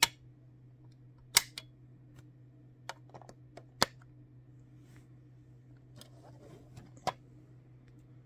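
Sharp clicks and taps of a 1:32 die-cast Peterbilt 579 model truck being handled: four loud clicks a second or two apart, lighter ticks between them, and a short rustle about six seconds in. A steady low hum runs underneath.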